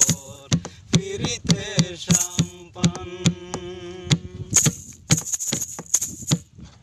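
A man singing a long held line of a Bengali folk song over hand drumming on a plastic jerrycan in a steady beat. The singing stops about four seconds in, and the drumming goes on alone with a run of quicker strikes before stopping near the end.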